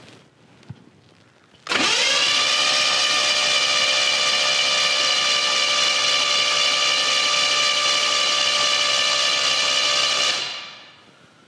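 The 1972 Chevelle's engine being spun over by a motor to check pushrod rotation: a steady mechanical whine that comes up to speed about two seconds in, holds even, and winds down near the end.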